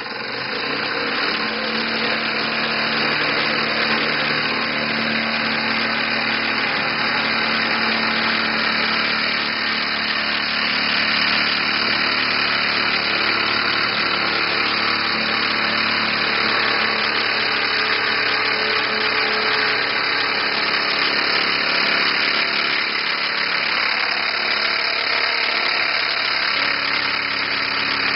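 Single-cylinder oscillating model steam engine running on compressed air, fast and steady, with a continuous hissing exhaust. It comes up to speed in the first second or so.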